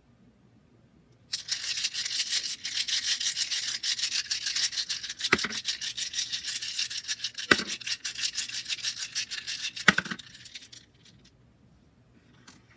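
Resin D4 rune dice shaken together, making a dense, rapid clicking rattle for about nine seconds, with three sharper clacks partway through.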